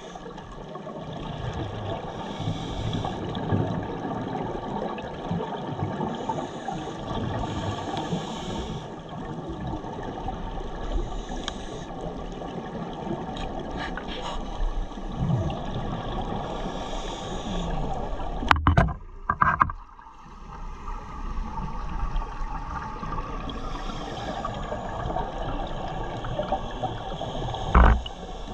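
Underwater ambience picked up by a diver's camera: a steady rushing hiss, with hissing bursts every few seconds like a scuba diver's exhaled bubbles. A few sharp knocks stand out, the loudest about two-thirds of the way in and again near the end.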